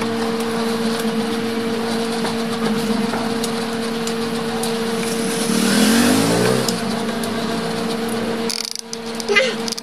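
A motor vehicle engine going by, swelling and rising in pitch about six seconds in, over a steady hum.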